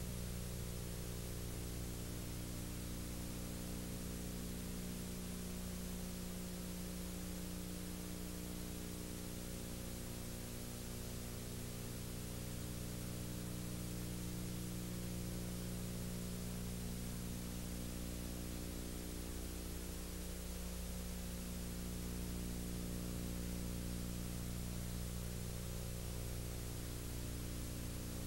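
Steady tape hiss with a constant low electrical hum of several tones underneath: the empty audio track of an old VHS recording, with no music or voices.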